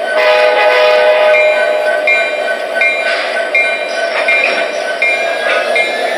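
Digital diesel sound system of an MTH RailKing Imperial SD70ACe O-gauge model locomotive: a steady prime-mover drone with the locomotive bell ringing about once every 0.7 s, and a brief horn note in the first second.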